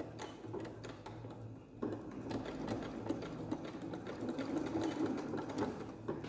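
Electric domestic sewing machine running at a steady pace, stitching a seam through thick layers of upholstery fabric; it gets a little louder about two seconds in.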